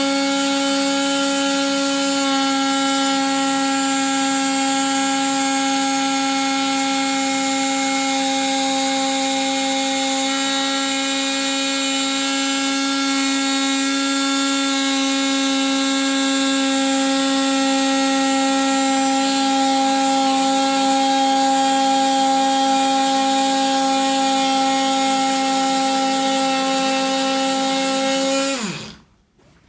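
Ryobi oscillating multi-tool running with a steady high hum as it cuts acrylic sheet, then switched off near the end, its pitch falling as it winds down.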